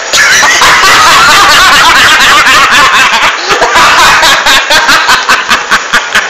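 People laughing hard and loudly. The laughter breaks into a fast run of short bursts in the second half.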